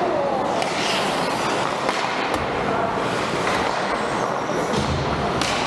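Ice hockey game noise in a rink: a steady, loud wash of skates scraping and carving the ice, with a few short sharp knocks.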